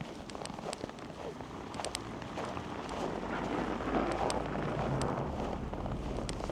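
Footsteps crunching in snow, with a rushing noise that swells in the middle and eases near the end.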